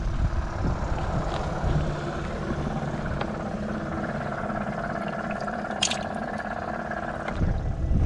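Small battery aerator pump on a plastic fish bucket buzzing steadily, with water sloshing as hands reach into the bucket to grab a fish, and a short sharp splash about six seconds in. The hum stops shortly before the end.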